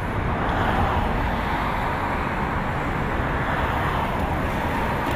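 Steady street traffic noise, an even rush of passing road vehicles.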